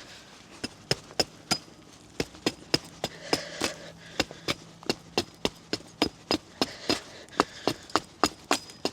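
A hatchet chopping a small piece of wood into a wedge: rapid, light strokes of the blade into the wood, about three a second, with no pause.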